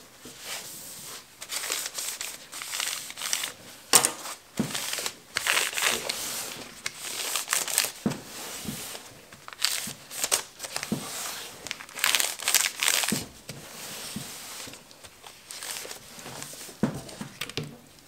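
Paper towel crinkling and rustling in gloved hands as it wipes along the paper-lined edges of a wooden soap mold, in irregular scrunching strokes with a few sharp clicks.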